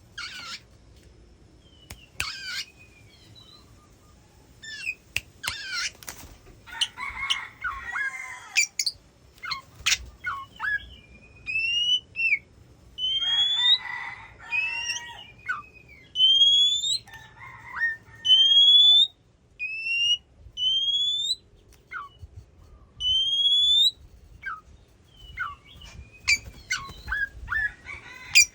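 Oriental magpie-robin singing: varied phrases of clear whistles and chattering notes. In the middle comes a run of rising whistled notes, repeated about once every second or two.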